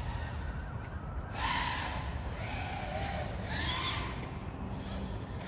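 5-inch FPV quadcopter's brushless motors and propellers whining, the pitch swelling up and falling back three times as the throttle changes, over a steady low rumble.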